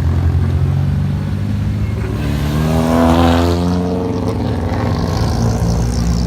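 A car's engine under load as it drives past, getting louder to a peak about three seconds in and then dropping in pitch as it moves away, over a steady low engine drone.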